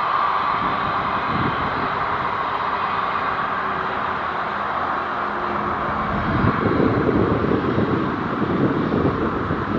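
Jet noise from a Boeing 737 MAX 8's CFM LEAP-1B turbofan engines at takeoff power: a steady, loud rush with a hum near 1 kHz, joined by a louder low rumble from about six and a half seconds in.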